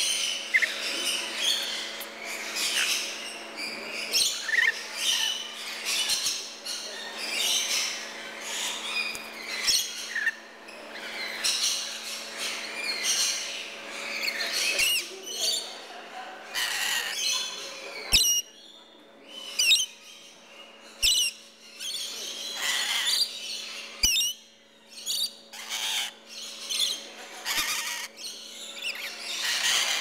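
Rainbow lorikeets calling in a dense run of short, high screeches and chirps, some gliding in pitch, with a steady low hum underneath.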